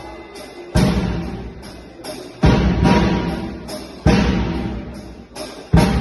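Drum kit played in a slow, heavy pattern: four loud accented hits about every second and a half, each ringing out and fading, with lighter strokes in between.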